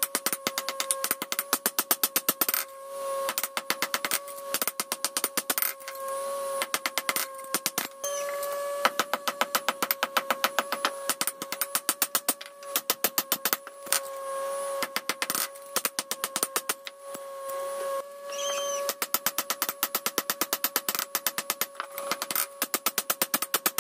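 Hand hammer striking a red-hot knife blade on a steel anvil, in quick runs of several blows a second broken by short pauses, with the anvil ringing steadily under the blows.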